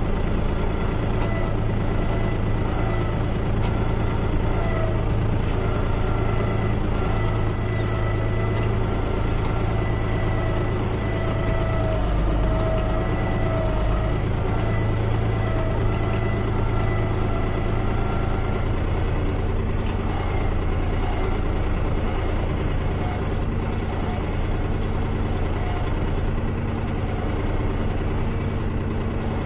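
SAME Explorer 50 tractor's diesel engine running steadily, heard from inside the cab as the tractor is driven slowly with the engine still cold after three months standing; its note changes slightly about two-thirds of the way through.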